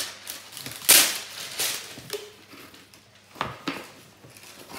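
Wooden spoon stirring a sticky oat, honey and butter mixture in a plastic mixing bowl: a few short scrapes and knocks against the bowl, the loudest about a second in.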